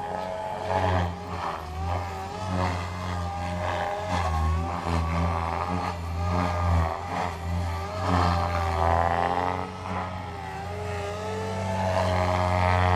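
Electric SAB Goblin 500 RC helicopter in flight: a steady low rotor drone under a motor whine that bends up and down in pitch and swells in loudness as it manoeuvres.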